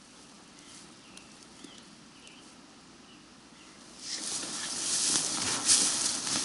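A few faint scarlet tanager song notes over quiet. About four seconds in, loud swishing and rustling of tall grass and sedge starts as someone walks through it.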